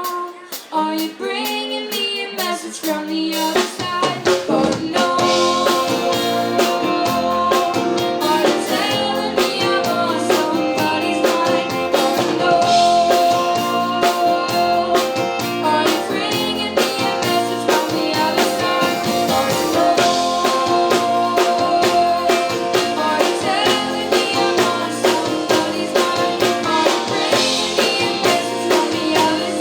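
Live band song with a woman singing over guitar, bass and drum kit; a sparser opening gives way to the full band with bass and drums about four seconds in.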